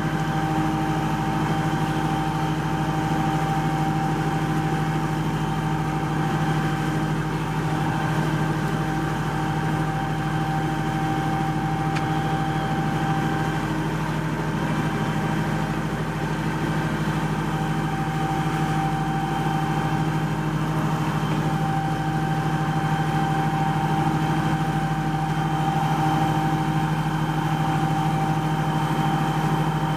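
A ship's engine running at a steady speed: an even, unchanging drone with a low hum and a fainter, higher whine.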